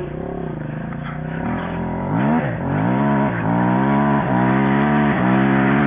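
Dirt bike engine revving under throttle, growing louder from about two seconds in, its pitch dipping briefly about once a second as the throttle is chopped and picked up again.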